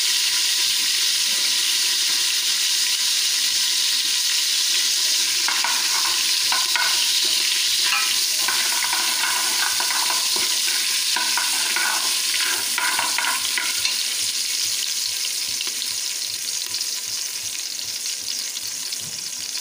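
Curry leaves, mustard seeds and urad dal sizzling in hot oil in a pressure cooker, stirred with a metal ladle that scrapes the pot now and then in the middle. The sizzle slowly dies down toward the end.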